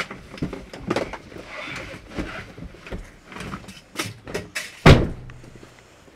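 Knocks and rustling of people moving around inside a car and getting out, then a car door slamming shut about five seconds in.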